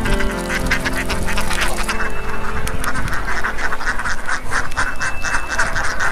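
Ducks quacking in a rapid, continuous run of several quacks a second, growing denser about two seconds in.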